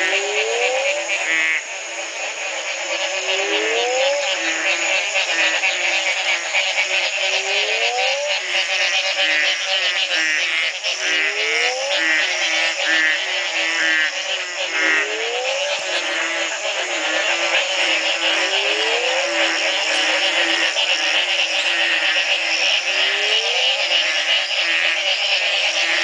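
Dense chorus of many frogs calling, a breeding chorus set off by the first night of rain after a long drought. One call is a rising whoop repeated every three to four seconds, over a low note repeated rapidly and a busy high layer of trills and chirps.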